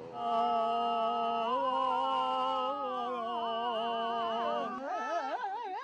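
A voice singing or humming long held notes, joined by a second held pitch about a second and a half in; near the end the pitch breaks into a fast, wavering warble.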